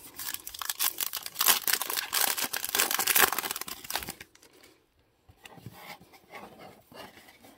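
A trading-card pack wrapper being torn open and crinkled for about four seconds. This is followed by fainter rustling as the stack of cards is slid out and handled.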